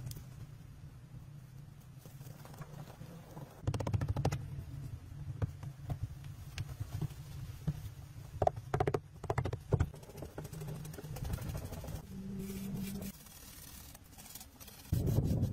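Scattered knocks, scrapes and creaks of wood as someone moves about on a rustic wooden pole ladder, over a steady low hum. There is a cluster of knocks about four seconds in and another run of them around the middle.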